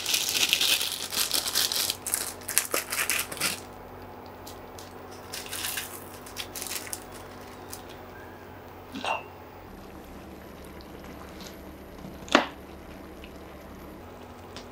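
Plastic instant-noodle wrapper crinkling and rustling as a packet of Maggi noodles is torn open and unwrapped. After about three seconds it goes quieter, broken by two short sharp knocks, the louder one about twelve seconds in.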